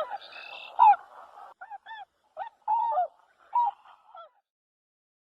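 Swans calling: a run of short, repeated calls, some overlapping, that stops about four seconds in.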